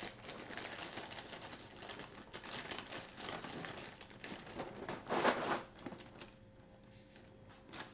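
A cereal box being opened, with the plastic inner bag crinkling and crackling as it is pulled apart in a run of quick crackles. The loudest rustle comes about five seconds in, and the sound turns quieter after that.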